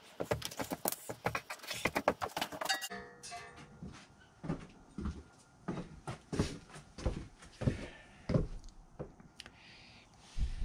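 Strummed ukulele music: a quick flurry of strums, then strums on a steady beat about every two-thirds of a second from about three seconds in.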